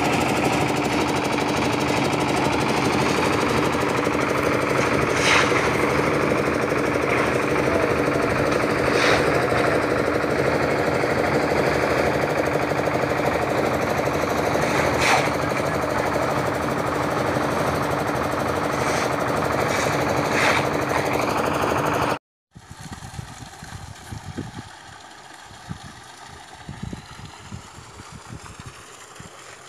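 An engine running steadily, with a few sharp knocks over it. About two-thirds of the way through it cuts off abruptly to a much quieter outdoor background with low wind bumps on the microphone.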